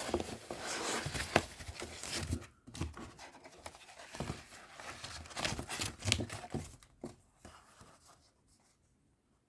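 Typing on an Ajazz AK871 mechanical keyboard with blue switches: quick keystroke clicks, a dense run at first, then bursts, thinning out to quiet near the end.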